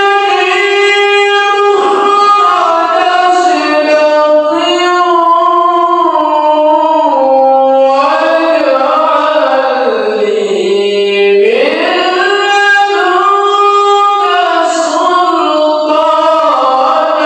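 A qari reciting the Quran in melodic tilawah style, one voice holding long ornamented notes without a break. The pitch sinks to its lowest about ten seconds in, then climbs back up.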